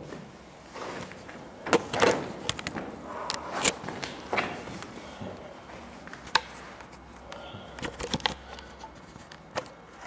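Someone climbing a tower ladder: irregular knocks, clunks and scrapes of hands and feet on the rungs, a few sharper clacks among them.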